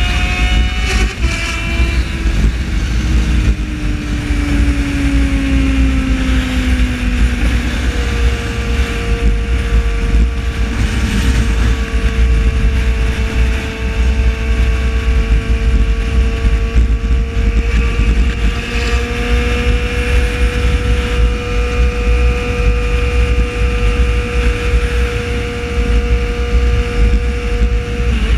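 Yamaha XJ6's 600 cc inline-four running at highway cruising speed, heard on board with heavy wind rumble on the microphone. Its note sags a little over the first few seconds, then steps up about eight seconds in and holds steady.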